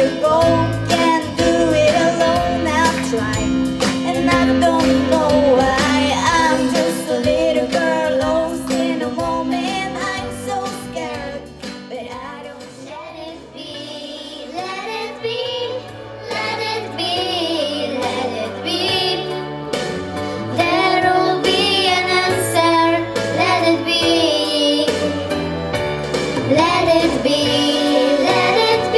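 Live vocal group of girls singing a pop song with instrumental accompaniment and young girls' voices carrying the melody. The music thins and quietens for a few seconds around the middle, then builds again.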